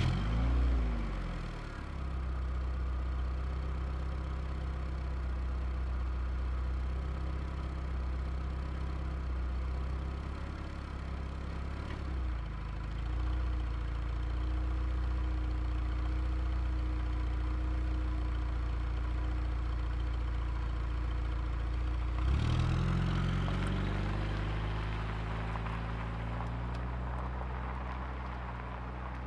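Car engine starting: it catches with a brief rise in revs that falls away into a steady idle. About 22 seconds in it revs briefly and drops back to idle.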